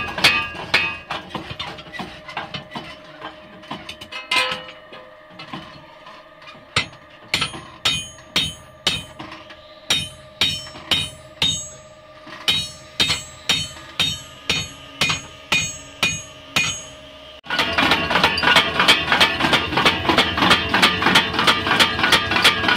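Homemade belt-driven power hammer running with a steady motor hum, its ram striking hot steel in regular blows about twice a second. Near the end the sound cuts suddenly to music with guitar.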